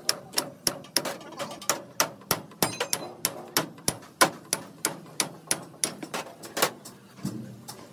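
Hammer striking in a steady rhythm of about three blows a second. The blows stop about seven seconds in.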